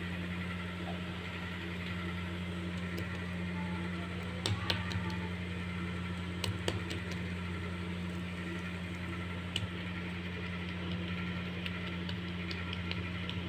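Steady low hum from a fan or electrical equipment, with a few faint soft taps as an oiled hand pats stuffed poli dough flat on a board.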